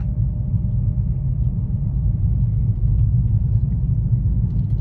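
Steady low rumble of a 2020 Toyota Corolla hatchback's engine and its tyres on a snow-covered road, heard inside the car's cabin while driving.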